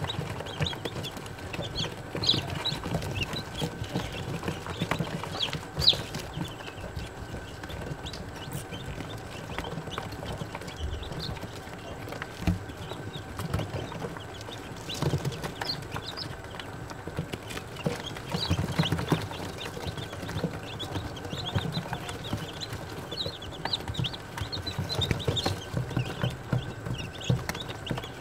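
A brood of day-old chicks peeping continuously in many short, high overlapping chirps, with irregular low thumps and scuffling underneath and one sharp knock about six seconds in.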